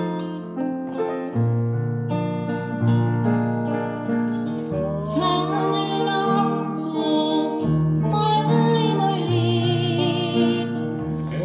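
Music: a digital piano played along with a backing track with acoustic guitar, over held bass notes that change every second or two. A sung melody with vibrato comes in about five seconds in.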